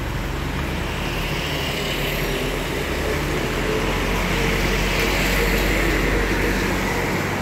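Street traffic with motor scooters running past on the road, over a steady low hum; the sound swells a little towards the middle and then eases.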